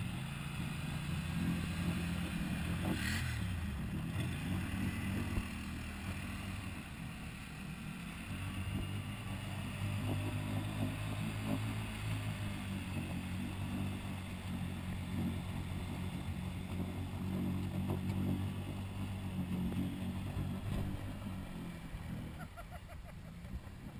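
Quad engine running and revving in a deep muddy water hole, the note rising and falling as the ATVs work around a stuck Can-Am 500, with a sharp knock a few seconds in. The engine sound falls away about two seconds before the end.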